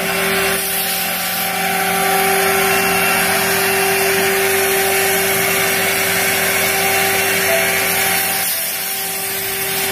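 CNC router spindle running with a steady high whine as its bit cuts the outer perimeter of a sign from sheet material, with a constant hiss of cutting over it. The cutting noise eases briefly about a second before the end.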